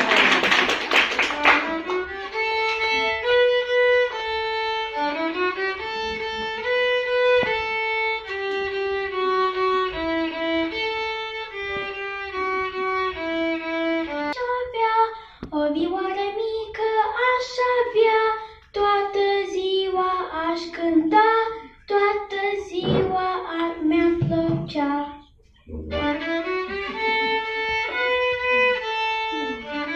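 Solo violin played by a young girl: a simple melody of sustained bowed notes, breaking off briefly about 25 seconds in before going on. A short burst of noise comes at the very start, before the playing.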